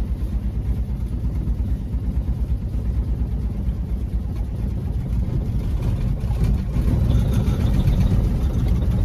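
1957 Chevy Bel Air's six-cylinder engine running with an even low pulse as the car is moved, getting louder about seven seconds in.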